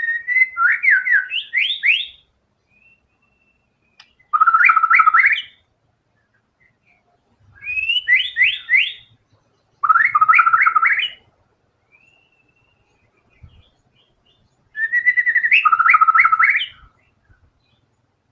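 White-rumped shama singing in full voice: five loud phrases of fast, repeated rising notes, separated by pauses of one to three seconds.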